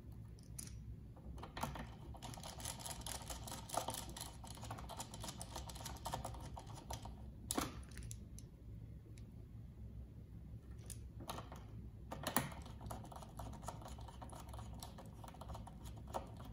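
Faint, irregular clicking and crinkling of thin stranded hookup wires being handled and twisted by hand, in clusters, with a few sharper clicks.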